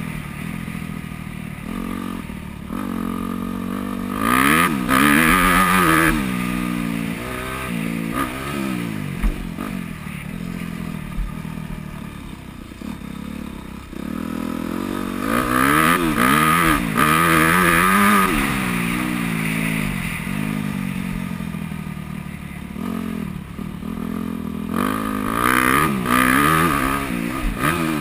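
Four-stroke single-cylinder engine of a 2009 Yamaha YZ250F motocross bike being ridden hard on a dirt track, heard on board, its pitch rising and falling again and again as the rider opens and shuts the throttle and shifts. The loudest stretches of full throttle come about four seconds in, around the middle, and near the end.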